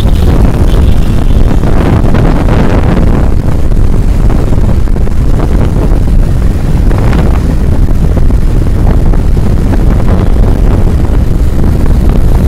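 Wind buffeting the microphone on a moving open vehicle: a loud, steady low rumble, with traffic and engine noise beneath it.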